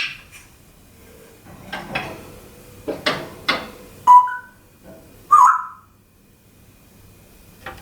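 African grey parrot making a few short, sharp clicking sounds, then two short, loud whistled calls about four and five and a half seconds in.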